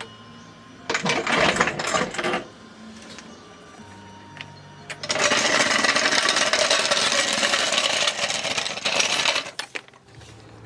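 Rapid mechanical rattling from a tool at work on the car, in two bursts: a short one about a second in and a loud one of about four seconds from the middle.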